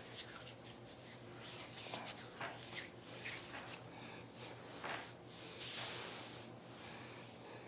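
Close, faint rubbing and scratching sounds: a quick series of short scrapes, with a longer one about six seconds in.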